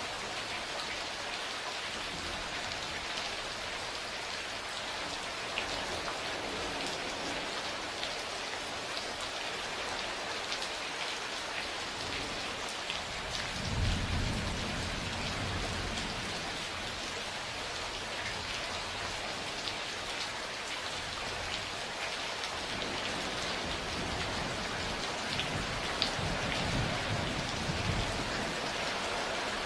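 Steady, heavy rain hissing and pattering, with distant thunder rumbling low about halfway through and again near the end.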